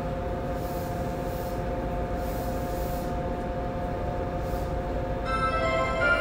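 Inside a Yokohama Municipal Subway 3000A car: a steady low rumble and hum with a few held tones. About five seconds in, a chime tune starts to play.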